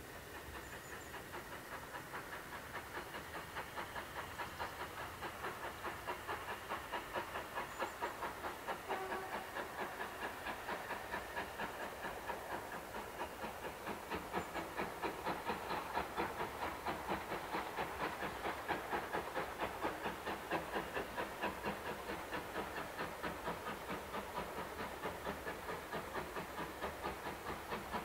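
Steam locomotive approaching under power, its exhaust chuffing in a steady, even rhythm that grows louder as it nears.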